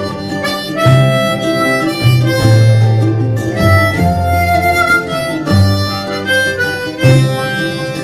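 Diatonic harmonica in C playing a simple melody in single clean notes over a backing track with guitar and bass.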